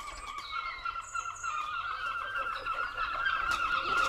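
A flock of birds calling, many overlapping short chirps and squawks, growing louder.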